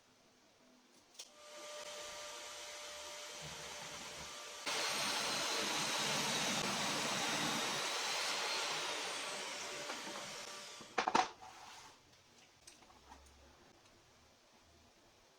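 An electric power tool switched on with a click, its motor running steadily with a whine. It becomes suddenly louder for several seconds, then dies down, followed by a few sharp clicks.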